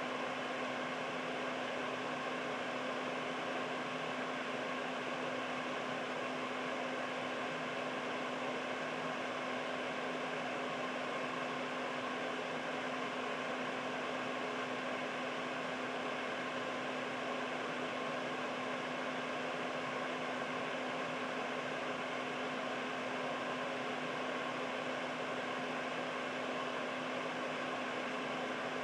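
Air purifier's fan running steadily: an even rush of air with a steady low hum underneath.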